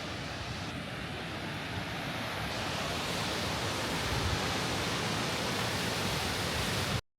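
Steady rush of water churning through a canal lock, growing a little louder about two and a half seconds in and cutting off suddenly near the end.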